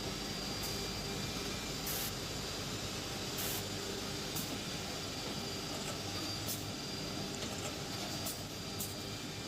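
CNC six-sided panel drilling machine running: a steady machine hum with several short hisses scattered through it.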